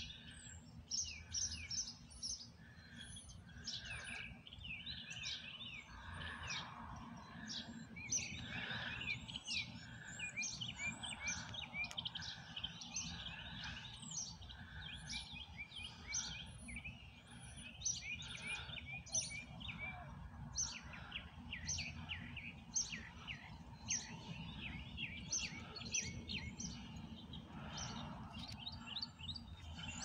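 Many songbirds chirping and calling at once: a dense chorus of quick high chirps and short downward sweeps, with a lower call repeated roughly every second for the first twenty seconds. A steady low background hum runs underneath.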